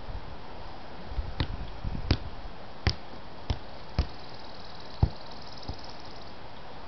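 A soccer ball being kicked and touched on a grass lawn: about seven sharp thuds spaced half a second to a second apart, the loudest about five seconds in.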